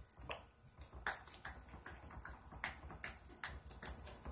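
Spatula stirring and pressing thick, lumpy hot-process soap batter in a ceramic crock pot insert, making soft wet smacks and clicks, two or three a second and unevenly spaced. The lumpiness comes from stick blending the batter.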